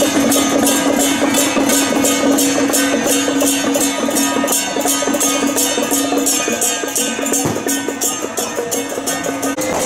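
Temple-procession percussion: a small hand-held drum and small hand cymbals beating a fast, even rhythm, over a steady held tone.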